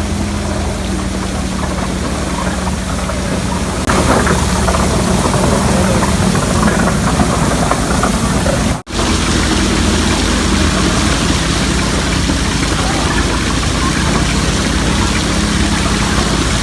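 Engine running steadily at a constant speed, powering a carrot-washing machine. About four seconds in, a louder, noisier layer joins the engine. The sound cuts out for an instant about halfway through.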